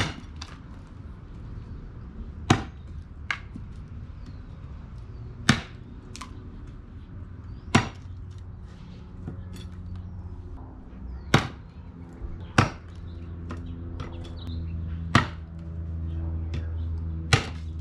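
A large camp knife, the Dark Timber Devil's Horn, chopping into wood: about seven sharp chops a couple of seconds apart, with fainter knocks in between.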